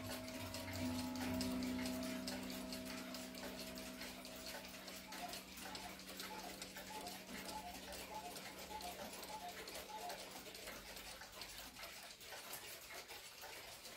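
Mechanical pendulum wall clocks ticking, a cuckoo clock among them, with a low steady hum under the ticking that fades out over the first half.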